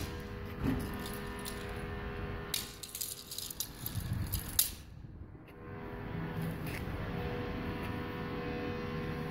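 Toy doll stroller rattling as it is pushed over stone steps, its light metal frame and plastic wheels clattering, with a few sharp knocks about two and a half and four and a half seconds in.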